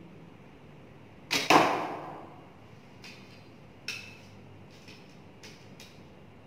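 A 30-pound Elong Meng Yuan traditional bow shot: two sharp cracks a fifth of a second apart as the string is loosed and the arrow strikes the foam target, the second the loudest with a short ring-out. Light clicks and rattles follow as the next arrow is taken and nocked.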